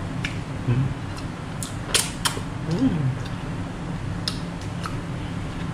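Eating at a table: a handful of sharp clicks and taps from a plastic utensil and a cardboard takeaway box being handled, the loudest about two seconds in, over a steady low room hum. A brief murmur from a voice comes shortly before the middle.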